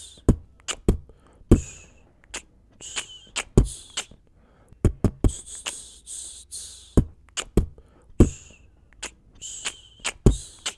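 Hip-hop beat playing on without vocals: a sparse drum pattern of deep kick-drum hits and short hissing cymbal or hi-hat hits, with no melody or voice.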